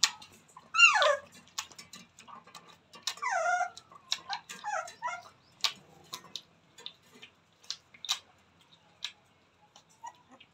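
Rottweiler puppies whimpering and yelping: one loud falling yelp about a second in, then several shorter whines between about three and five seconds, with sharp clicks and ticks scattered throughout.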